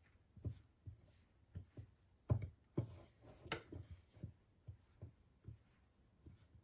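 Hands rubbing ghee into flour in a mixing bowl: soft rubbing and scraping with irregular light knocks of fingers against the bowl, about two a second, the loudest about two seconds in.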